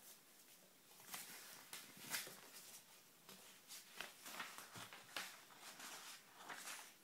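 Faint, irregular scratchy strokes of a child writing letters with a writing tool on a surface, one or two strokes a second.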